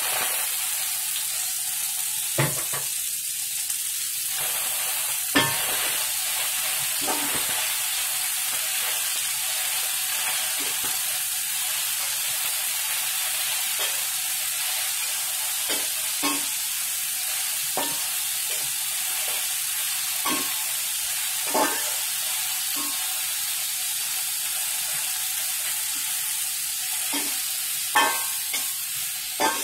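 Chopped sawi putih (Chinese cabbage) sizzling steadily in hot oil in a metal wok just after going in, while a metal spatula stirs it, scraping and knocking against the wok with irregular sharp clicks.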